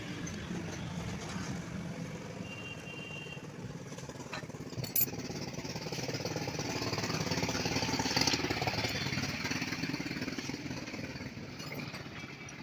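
Bajaj Discover 100 motorcycle engine running steadily, swelling louder for a few seconds in the middle, with one sharp click about five seconds in.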